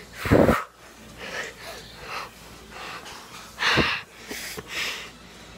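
A boy breathing hard and gasping close to a phone's microphone, with two loud breath bursts about three seconds apart and softer breaths between them.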